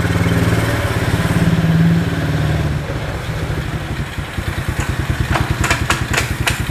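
The 125 cc four-stroke engine of an ATV 125 Commander quad running as it pulls away. It revs up briefly about two seconds in, then drops to a lower, pulsing run as it rolls off, with a few sharp clicks near the end.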